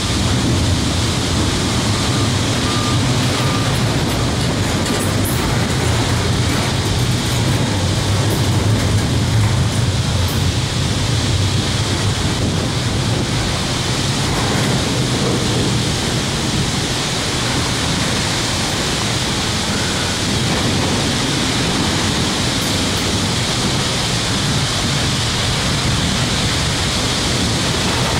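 Double-stack intermodal well cars of a freight train rolling past close by: a steady, loud noise of steel wheels on rail.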